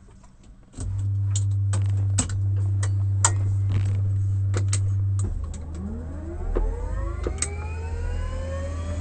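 Bell 206 helicopter's turboshaft engine being started. A loud steady low hum sets in about a second in, with scattered clicks. From a little past halfway, the turbine whine rises steadily in pitch as the engine spools up.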